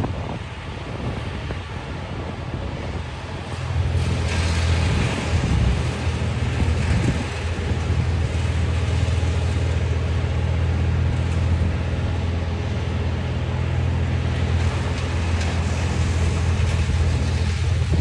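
Heavy diesel engine of crane machinery running: it picks up about four seconds in and then holds a steady, even drone while the crane hoists a cut tree. Before that, wind noise on the microphone.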